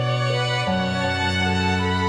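Slow, sad background music with sustained string-like notes, the harmony changing about once in the middle.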